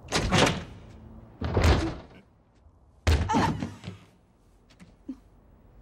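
Old wooden door being opened: three separate clunks and rattles from the latch and door, about a second and a half apart, each dying away quickly.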